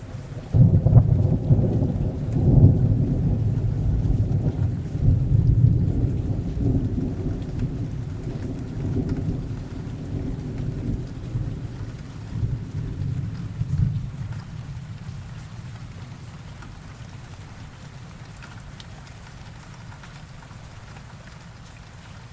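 Rain sound effect with a long clap of thunder: a loud low rumble breaks in about half a second in and rolls on in waves, dying away after about fourteen seconds, leaving steady rain.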